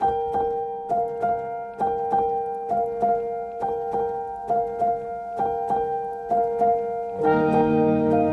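Background piano music: a steady pattern of notes struck about twice a second over held tones. Lower notes join near the end and fill it out.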